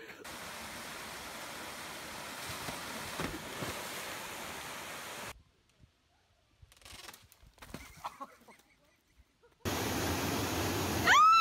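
Rushing waterfall white water with a loud yell that rises and falls in pitch near the end, after a steady hiss for about five seconds and a quieter stretch with a few faint knocks.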